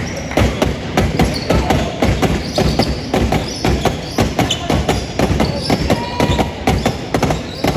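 Basketball game on a gym court: a ball bouncing, many quick thumps of feet, and short high sneaker squeaks on the floor.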